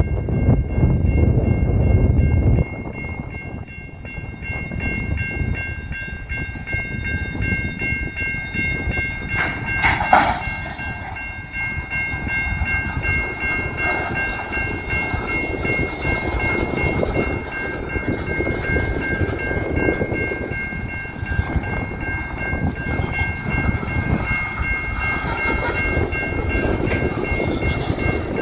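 Loaded covered hopper cars rolling slowly through a grade crossing, wheels rumbling and clacking on the rails, while the crossing bell rings steadily. About ten seconds in there is one sharp metallic screech or clank from the cars.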